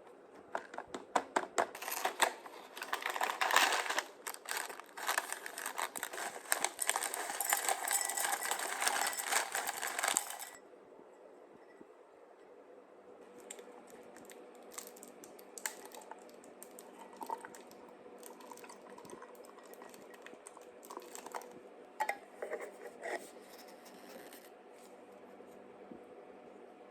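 Kitchen handling sounds: dense crinkling and rattling for about ten seconds, then it drops off to scattered light clicks and clinks over a faint steady hum.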